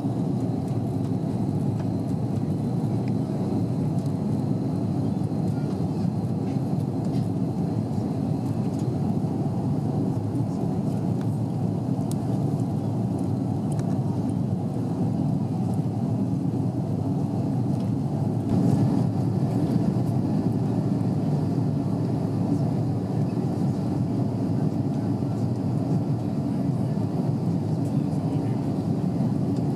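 Steady jet engine and airflow noise of an Airbus A330 heard inside the cabin as it climbs out after takeoff, with a slight swell in loudness about two-thirds of the way through.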